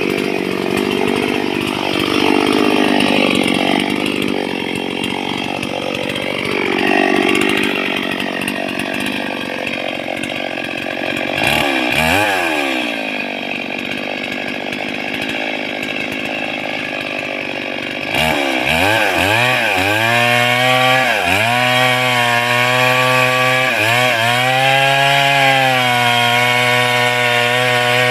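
Two-stroke chainsaw with a long bar running hard and cutting into a tree trunk. Partway through, the engine drops off and runs lower for several seconds, then revs back up and bites into the wood again, its pitch sagging and recovering over and over as the chain takes load.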